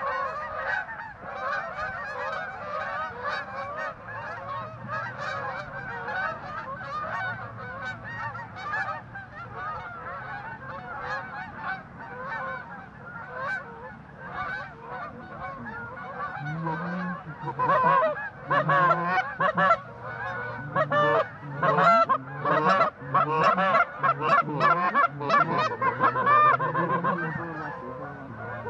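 A flock of geese honking, many overlapping calls at once, growing louder and closer about two-thirds of the way through.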